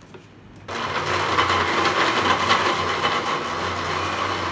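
Electric countertop jug blender running, grinding boneless chicken with green chillies into mince. It starts abruptly under a second in, then runs steadily with a low hum.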